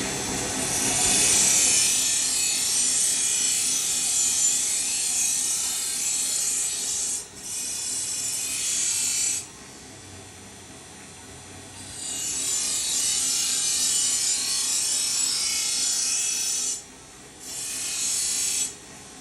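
Katana blade being sharpened: steel rasping against an abrasive in four long passes, the longest about six seconds, each stopping suddenly.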